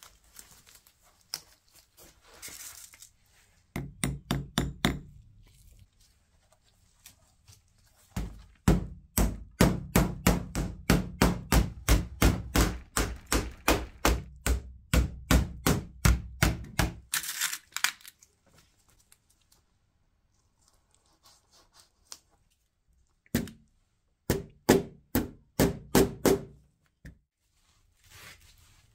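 Small hammer tapping tacks through a fabric lining into the rim of a wicker pram body: quick even knocks about three a second in one long run, with shorter runs before and after.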